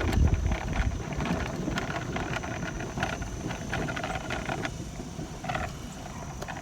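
Golf cart riding along the course: a low rumble with wind on the microphone, easing after about a second, and light rattling clicks throughout.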